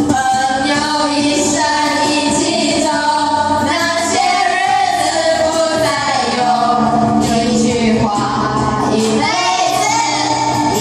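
A group of young women singing together into handheld microphones, with backing music.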